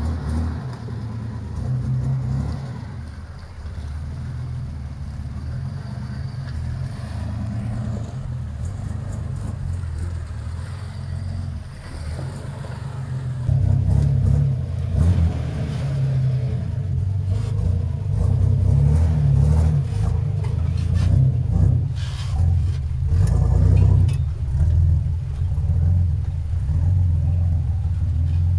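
Toyota Land Cruiser FJ40 engine running at low revs under load as it crawls over rocks, the revs rising and falling. It gets louder about halfway through, and a few short knocks come in the later part.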